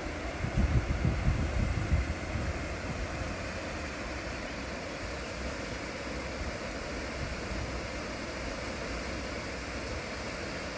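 Steady rush of water from a small waterfall, with wind buffeting the microphone in the first two seconds.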